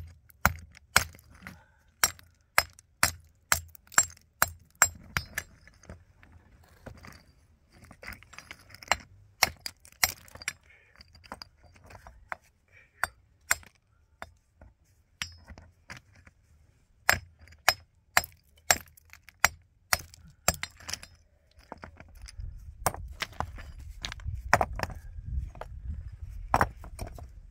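Hammer striking stone with sharp, ringing clinks: a quick run of about two blows a second, a lull with scattered blows, then another run. A low rumble sets in under the last few seconds.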